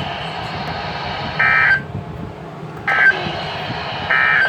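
Emergency Alert System end-of-message signal: three short bursts of buzzy digital data tones, a little over a second apart, over steady radio hiss. They mark the end of the tornado warning broadcast.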